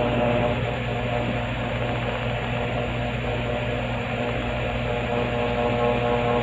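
A steady machine hum with several held tones over an even hiss, unchanging throughout.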